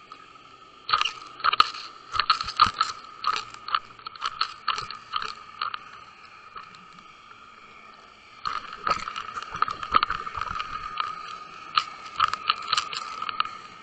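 Underwater recording of a jigged fishing rig and camera bumping and dragging over a sandy sea bottom: two long runs of rapid clicks, crunches and scrapes with a lull between them, over a steady thin whine.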